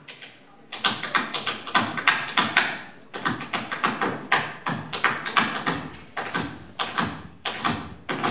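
Tap shoes striking a stage in a fast, rhythmic run of sharp taps, starting about a second in after a brief quiet lead-in.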